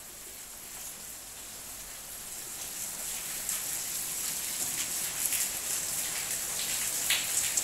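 Heavy rain falling steadily on a tiled yard and roof, growing louder as it is approached, with a few sharper drip ticks in the second half.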